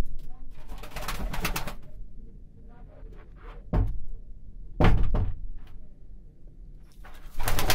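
Domestic pigeons cooing inside their loft, with two sharp knocks about a second apart near the middle.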